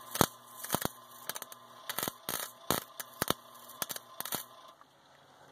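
Camera handling noise: irregular sharp clicks and taps, about a dozen over four seconds, dying away near the end.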